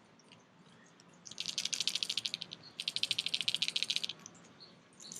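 A Cloud9 C6 crankbait shaken in the hand so that the beads inside rattle in fast, even clicks. It is shaken twice, each time for just over a second.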